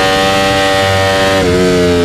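Ducati Panigale V4R's 998 cc V4 engine under load at high revs, holding a steady note, with a brief break in the note about one and a half seconds in, like a quick gear change, after which the pitch begins to ease down.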